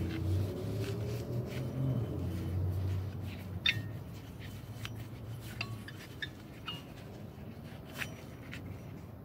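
A removed serpentine-belt pulley spun by hand, whirring and winding down in pitch over the first few seconds, then light clicks and clinks as the metal pulley and tensioner parts are handled and set down.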